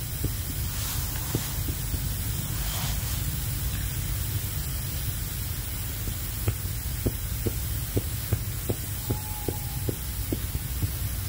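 Coleman gas canister stove burning under a pot, a steady low rumble with light hiss, and scattered faint ticks that come more often in the second half.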